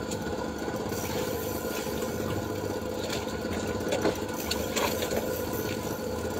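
A boat's engine running steadily with a fast mechanical chatter, with a few faint ticks partway through.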